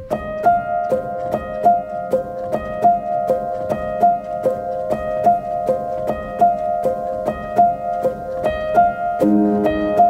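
Background music: a piano playing a steady, repeating pattern of short notes, about two to three a second, with lower notes joining near the end.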